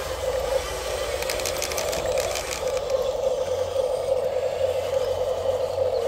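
Toy RC tracked bulldozer's electric drive motor and gearbox whining steadily as it drives, with rapid plastic clicking in the first half.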